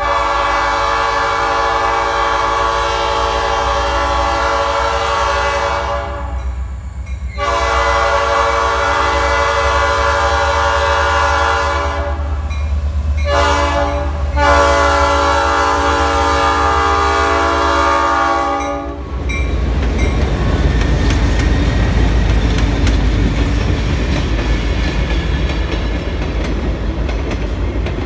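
Rock Island 4506 diesel locomotive sounding its horn in the grade-crossing pattern of two long blasts, a short and a long. It then rumbles past with its train, the wheels clacking over the rail joints.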